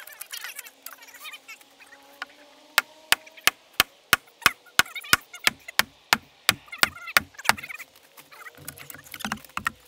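Ratchet strap being cranked tight around heavy timbers: a steady run of about fifteen sharp ratchet clicks, roughly three a second, that stops a couple of seconds before the end.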